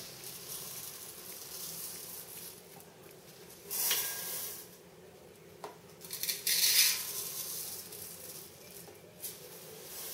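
Uncooked rice being measured out by the cupful and poured into a rice cooker pot: two pours of about a second each, a few seconds apart, among lighter clinks and scrapes of the cup against the pot.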